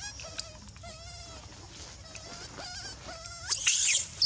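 Baby macaque crying in a string of short, wavering, high squeaky calls while wrestling with another young monkey, with a louder harsh scream about three and a half seconds in.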